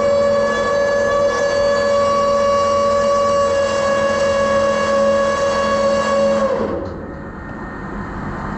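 Lifeboat davit winch whining steadily as the enclosed lifeboat is lowered on its wires, then falling in pitch and stopping about six and a half seconds in as the lowering ends.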